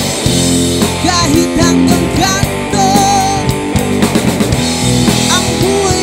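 Rock band playing live: electric guitar, electric bass and drum kit, with a male voice singing over them.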